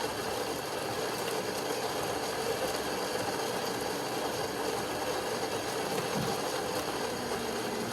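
Saeco Odea Giro Plus's built-in coffee grinder running steadily, grinding beans for a shot; the newly replaced grinder is working properly.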